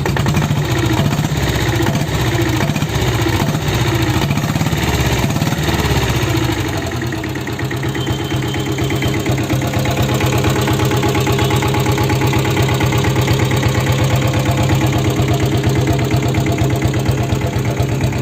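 Diesel Royal Enfield Bullet's single-cylinder engine running, uneven and varying for the first six or seven seconds, then settling into a steady idle with an even beat.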